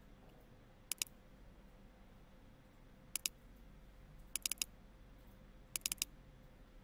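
Computer mouse button clicking in quick double-clicks: a pair about one second in, another about three seconds in, then two fast runs of four clicks around four and a half and six seconds in. A faint steady hum runs underneath.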